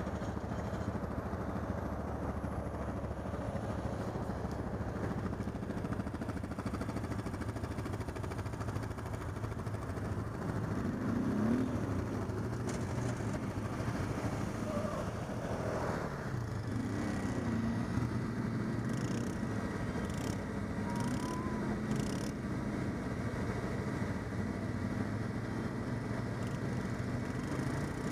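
Quad bike (ATV) engine running steadily, with the engine speed rising and falling a few times about ten and fifteen seconds in.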